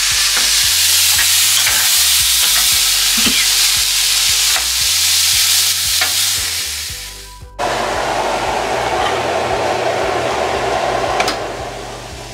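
Food frying in hot oil in a pan, a steady sizzle with a few short scrapes as it is stirred. About seven and a half seconds in, the sound breaks off abruptly and resumes as a softer, lower sizzle.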